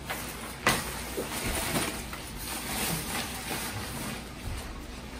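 Synthetic fabric of a packable duffel bag rustling as it is pulled open and handled, with one sharp knock a little under a second in.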